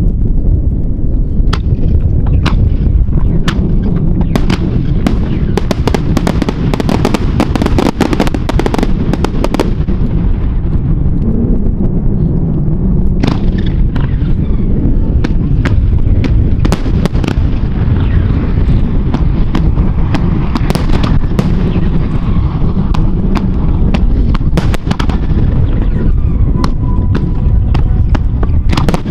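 Fireworks going off in rapid succession: many sharp bangs and crackles over a dense steady rumble of strong wind on the microphone.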